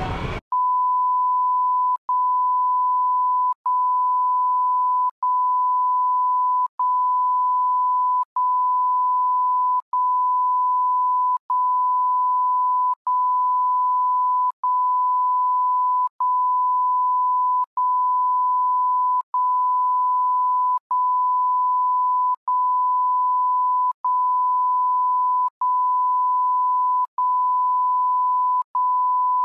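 A steady, pure electronic tone at one fixed pitch, broken by very short dropouts about every second and a half; the street sound cuts off abruptly just before it starts.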